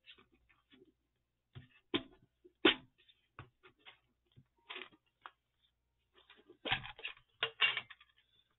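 Small pieces of paper handled by hand on a cutting mat: soft rustling with scattered sharp taps and clicks, the loudest about two and three seconds in and a cluster near the end.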